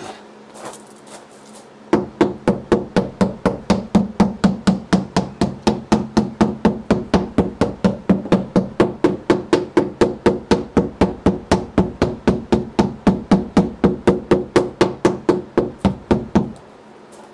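Rapid, even knocking, about four blows a second, each with a short ringing tone. It starts about two seconds in and stops shortly before the end.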